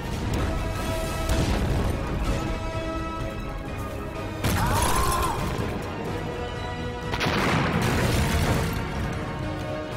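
Two shell explosions in a film battle scene, the first about halfway through and the second near three-quarters of the way, each a noisy blast lasting a second or so. Film score music runs under them.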